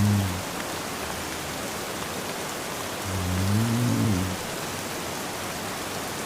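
Steady rain with a man snoring: one low, droning snore trails off just as it begins and another comes about three seconds in, wavering up in pitch at its end. The snores come roughly every four seconds.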